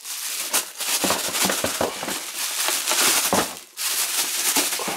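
Bubble wrap crinkling and crackling as a wrapped box is handled and drawn out of a cardboard box, with a short pause a little before four seconds in.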